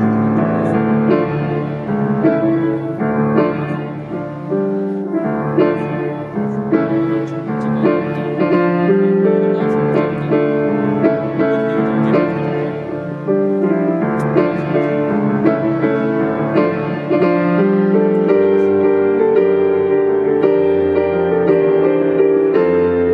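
Piano playing solo: sustained chords with a melody on top, amplified through a concert sound system.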